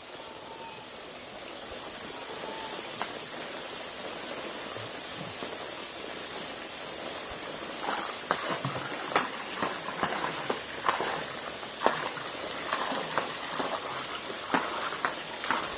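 Swimming-pool water churning with a steady hiss. From about eight seconds in, irregular splashing and spattering as a bucket of dissolved chlorine shock is poured into the pool.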